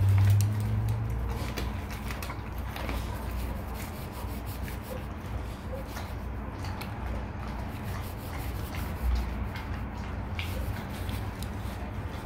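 Rottweiler chewing a raw chicken back: wet mouthing and crunching of the meat and bone, with many small clicks and smacks. A low hum is loudest for about the first second.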